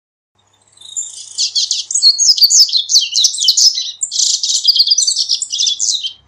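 Male double-collared seedeater (corbatita) singing: a long, fast twittering song of rapid high notes. It starts about half a second in, breaks off briefly near the middle, and stops just before the end.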